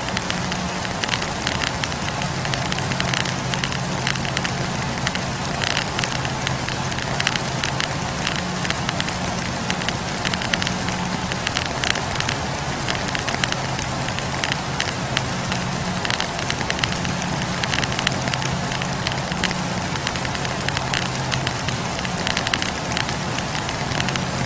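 Wood fire burning, the firewood crackling with many small irregular pops over a steady low rumble.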